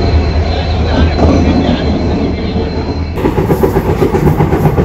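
Passenger train moving along a station platform: a deep steady rumble with a thin high whine. About three seconds in it cuts to a moving train with a quick rhythmic rattle.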